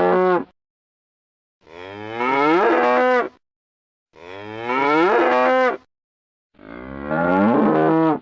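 Cow mooing: the end of one moo, then three more long moos about two and a half seconds apart with dead silence between, the same recorded call played over and over.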